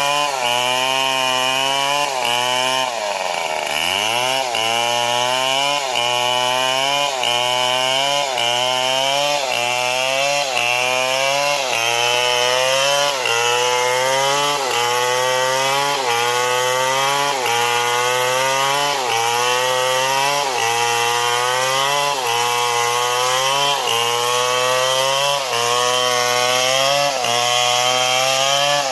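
Stihl MS 070 two-stroke chainsaw cutting wood under load, its engine pitch rising and dropping back in a regular cycle about every second and a half. About three seconds in the revs fall sharply and climb back.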